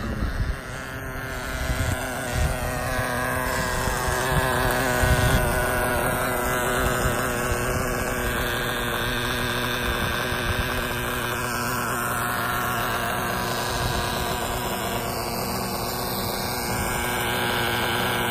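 Traxxas Jato 3.3's small two-stroke nitro engine running, growing louder over the first few seconds as the truck comes up, then holding a steady idle close by.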